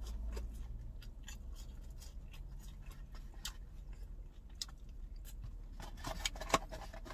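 Scattered light crinkles and clicks of paper being handled, a few sharper ones near the end, over a low steady hum.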